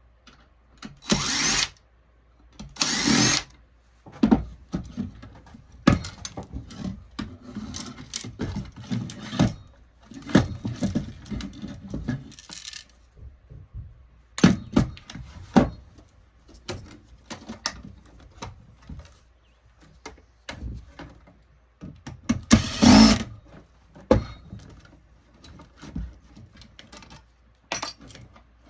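Cordless drill-driver run in short bursts, backing screws out of an electronics panel being taken apart for scrap: twice in the first few seconds and once more later on. Between the bursts come scattered clicks and rattles of parts being handled.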